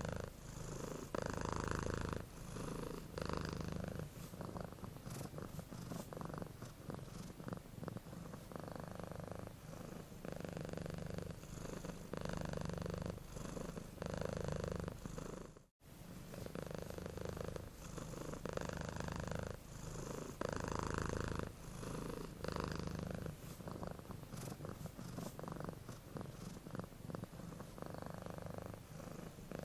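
Domestic cat purring, pulsing in steady phases of about a second or two each. The purr cuts out for a moment about halfway through, then resumes.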